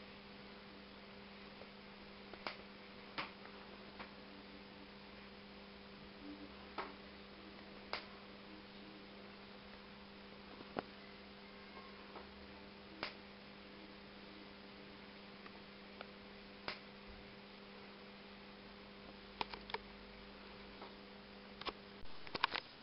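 Steady electrical hum from a CRT television's flyback high-voltage circuit, with irregular sharp clicks every second or few. Near the end the hum cuts off and a quick cluster of clicks follows.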